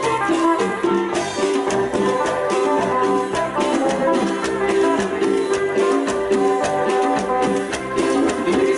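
A live tropical dance band playing an instrumental passage over a steady percussion beat, with electric guitars, bass, congas and timbales.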